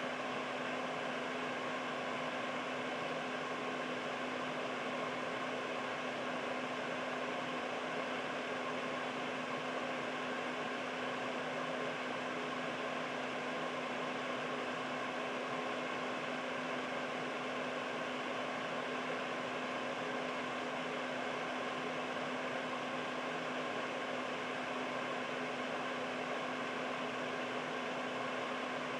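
Air purifier running steadily: an even rush of fan-driven air with a constant low hum underneath.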